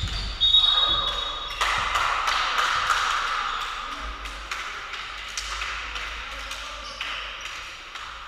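Volleyball match in an echoing sports hall: a short whistle blast of about a second near the start, then a burst of players' shouting and voices that slowly dies away, with a few scattered thuds of ball hits.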